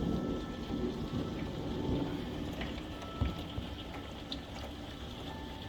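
Thunderstorm rain falling steadily, with a low rumble of thunder that fades over the first couple of seconds and a few light drip ticks.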